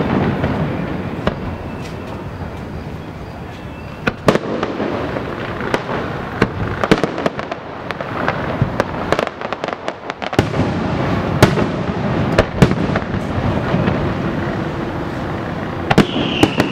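Aerial fireworks bursting: a string of sharp booms and crackles at uneven intervals over a continuous rumble of echoing reports. Near the end a whistling shell starts, its pitch falling.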